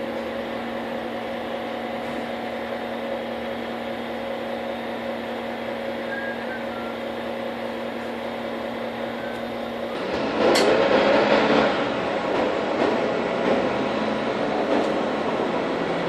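Mercedes-Benz Citaro K city bus heard from inside the passenger cabin: a steady engine hum at idle for about ten seconds, then a sudden, much louder and rougher engine noise as the bus moves off, staying raised to the end.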